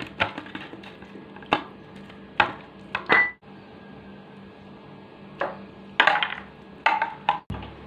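Chicken pieces being mixed by hand with garlic-ginger paste and spices in a metal bowl, with scattered short knocks and clinks against the bowl.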